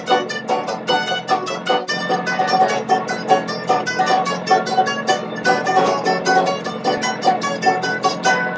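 Background music of fast-picked plucked strings, like a mandolin or banjo, playing a quick run of notes.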